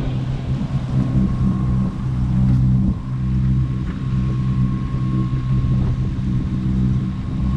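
Sailing yacht's inboard engine running steadily under way, with wind and water rushing along the hull.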